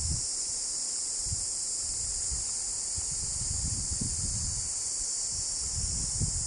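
Steady high-pitched insect chorus that does not rise or fall. Low irregular wind rumble on the microphone runs under it.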